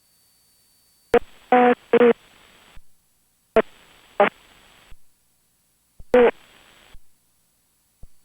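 Three short, garbled aviation radio transmissions in a headset, each opening with a click and carrying clipped, narrow-band voice over hiss that cuts off at unkey. A pilot on the ground is reading back an IFR clearance.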